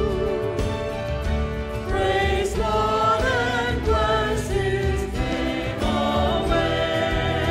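Mixed church choir of men's and women's voices singing together, moving from one held note to the next with vibrato on the long notes.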